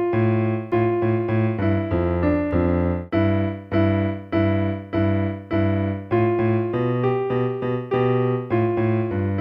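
Electronic keyboard with a piano sound, played with both hands: a simple melody over a low bass part, with quick even notes for the first three seconds, then slower, evenly spaced notes.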